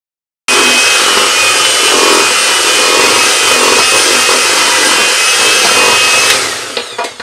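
Electric hand mixer running at speed, its wire beaters whirring through a thick butter mixture in a stainless steel bowl. It starts abruptly about half a second in. Near the end its whine falls as the motor winds down, and a few metallic clinks follow.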